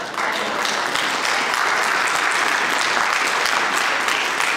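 Live audience applauding, a dense steady patter of many hands clapping that swells just after the start.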